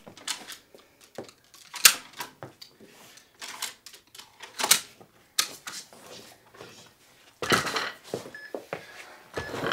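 PowerBlock adjustable dumbbells being adjusted and handled: irregular sharp metallic clicks and clacks from the selector pins and nested weight plates, with a denser clatter about three-quarters of the way through as the dumbbells are lifted and moved.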